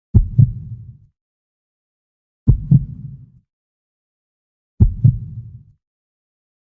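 Heartbeat sound effect: three slow, low lub-dub double thumps, about two and a third seconds apart, with silence between them.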